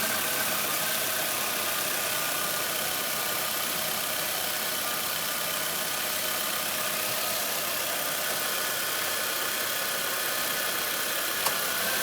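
2005 Nissan Altima's 2.5-litre four-cylinder engine idling steadily with the air conditioning on, with no rattle: the alternator's mounting bolts, which were rattling, are now tightened with blue Loctite. One faint click near the end.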